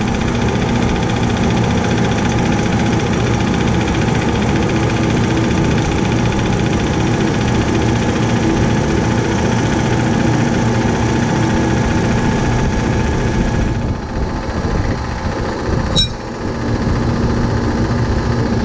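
Cold-storage refrigeration compressor running with a steady hum. The unit pumps but does not cool because it is low on freon. About 16 s in there is a single sharp click, just as the sound dips slightly.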